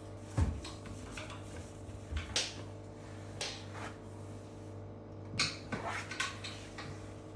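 A handful of short, sharp knocks and clicks, the loudest about half a second in, over a steady low hum.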